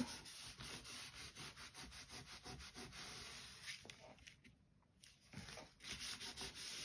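A cloth is rubbed back and forth over black cardstock in quick, faint scrubbing strokes, pressing a freshly glued paper pocket flat so it sticks. The strokes stop briefly about four seconds in, then start again.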